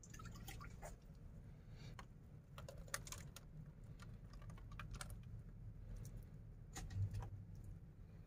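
Faint, irregular light clicks and taps over a low steady hum, with a slightly louder knock about seven seconds in.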